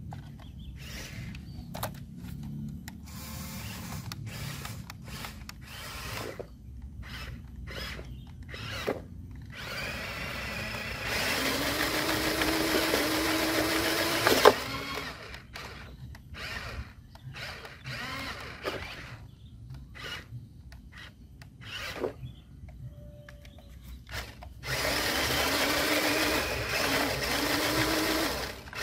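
Electric motor and gearbox of an RC model truck whining under throttle in two stretches of about three seconds each, the pitch rising slightly in each. Short clicks and brief bursts come in between.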